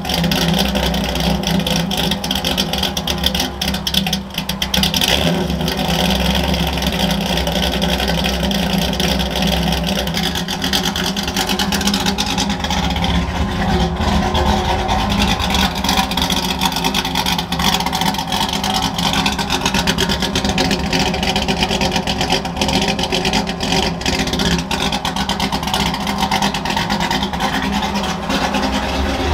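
Ford F100 engine running through a new custom dual exhaust with Black Widow Widow Maker 10 mufflers and a stainless X-pipe, idling with a steady, loud exhaust note. It is briefly revved about four seconds in.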